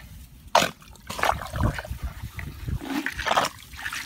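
Hands digging into a waterlogged crab hole: wet mud squelching and water sloshing in irregular bursts, the sharpest about half a second in.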